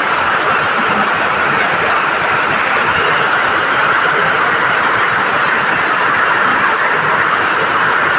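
Heavy rain pouring down, a dense steady hiss with no let-up.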